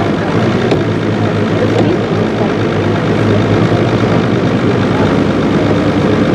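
Motorboat engine idling steadily: an even low hum with no change in speed.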